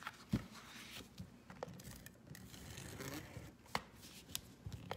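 Faint rustling and sliding of a sheet of cardstock being moved and lined up by hand on a tabletop, with a few soft taps.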